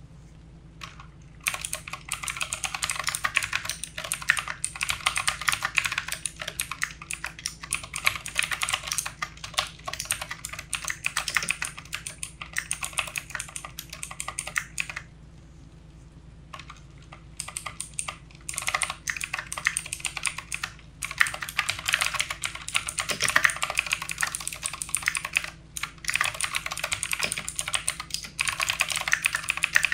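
Fast typing on a backlit computer keyboard: a dense run of key clicks that stops for about two seconds halfway through, then picks up again.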